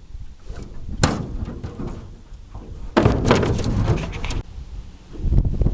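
A single thud about a second in, then a stretch of knocking and rustling handling noise from about three seconds in, with wind buffeting the microphone near the end.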